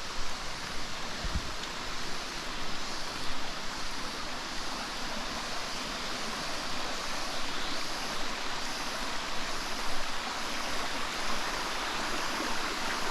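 Steady rush of a waterfall and stream pouring over rocks into a pool, an even hiss of water with no changes, and a single low thump about a second in.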